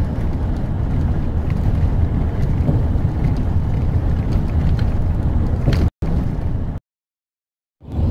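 Steady low rumble of road and engine noise heard from inside a tour coach driving through a road tunnel, with a few faint rattles. The sound cuts off abruptly about six seconds in and returns just before the end.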